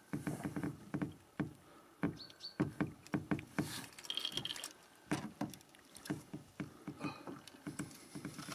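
A big pike thrashing at the side of a small boat as it is landed by hand: irregular splashes and knocks against the hull.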